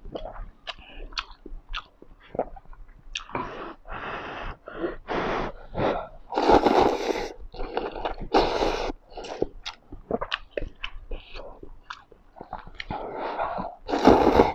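A person slurping instant noodles: a string of loud, airy slurps, each lasting up to about a second, with wet chewing and lip-smacking clicks in between. The loudest slurps come about halfway through and again near the end.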